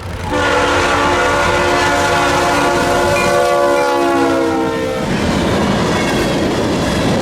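Diesel locomotive's multi-chime air horn sounding one long blast, its chord sinking slightly in pitch, cutting off about five seconds in. The locomotive's engine and the train's running noise carry on as a steady rumble.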